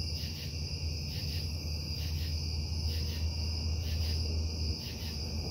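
A constant low industrial hum from a casting plant, the night-time noise the uploader reports as a violation of the noise ordinance, with crickets chirping steadily and rhythmically over it.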